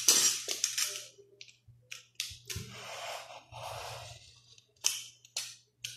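Utility cutter scraping and slicing along the sealed edge of a cardboard phone box: a burst of sharp scratching at the start, scattered clicks, some softer rustling of the packaging, then a few more short scratchy strokes near the end.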